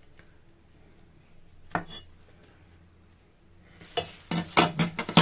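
Sharp knocks and clicks of a kitchen knife and mushrooms on a chopping board as shiitake stems are removed. A single knock comes about two seconds in, then a quick cluster of knocks near the end.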